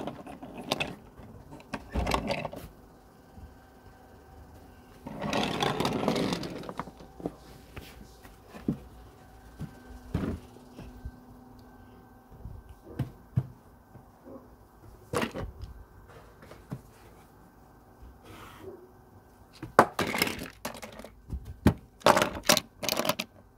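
Irregular knocks, clicks and clatter of handling: a wooden toy train pushed along wooden track, with a rustling scrape lasting a second or two about five seconds in and a cluster of sharper knocks near the end.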